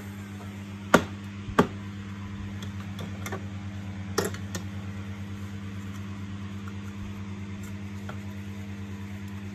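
Sharp clicks of a vacuum cleaner's plastic grille cover being unclipped: two loud ones about a second in and another about four seconds in. A steady low hum runs underneath.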